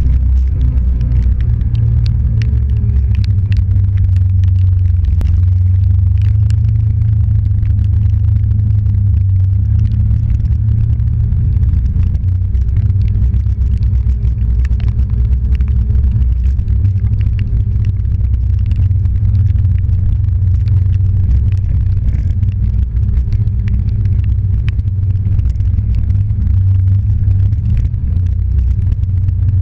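Off-road vehicle's engine running at a steady low drone while driving over a muddy dirt track, with scattered small ticks over it.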